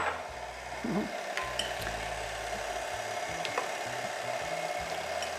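KitchenAid Artisan stand mixer running at low speed, its flat beater turning through cake batter with a steady motor whine, with a few faint clicks.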